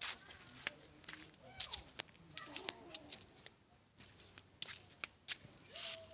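Faint scattered clicks and rustles of footsteps on dirt and the phone being handled, with a few short faint calls in the background, the clearest near the end.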